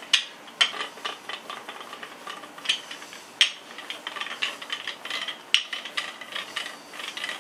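Wooden rolling pin rolling out Welshcake dough on a floured board: a rubbing, rasping sound broken by several sharp knocks as the pin and hands bump the board.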